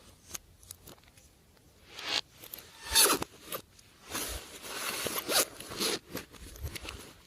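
Glossy slime being worked by hand, giving sticky crackling and rasping noises. These come in several bursts, with a loud one about three seconds in and a longer stretch from about four to six seconds.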